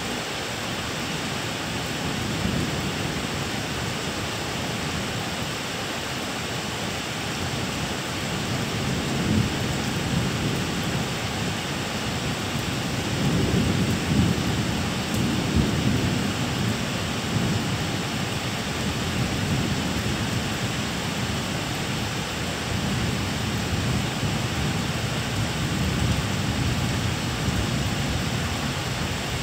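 Thunderstorm: steady rain hissing, with long rolls of thunder rumbling underneath that swell strongest about halfway through and build again near the end.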